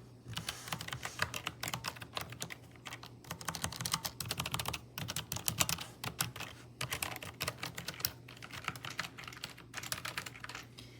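Typing on a Logitech low-profile mechanical gaming keyboard: quick runs of sharp key clicks in bursts with short pauses between them, loud but not ridiculously loud.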